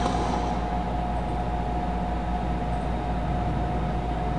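A burst of rapid airsoft gunfire ends right at the start, leaving a steady hum with a thin constant whine.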